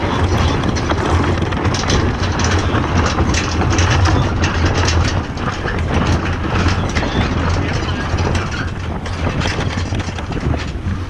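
Yacht's sheet winch being cranked with a winch handle, its pawls clicking rapidly and continuously, over steady wind noise on the microphone.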